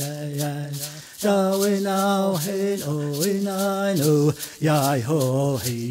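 Male voice chanting long held notes without words, stepping up and down between a few pitches, with short breaks for breath about a second in and again past four seconds.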